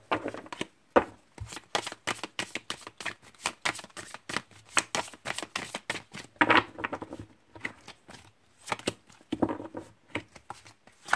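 Oracle card deck being shuffled by hand: a fast, irregular run of light card slaps and flicks, several a second.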